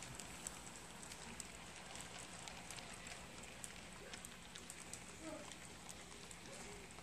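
HO scale model freight cars rolling past on the track, their small wheels clicking irregularly over the rail joints over a steady faint rolling hiss.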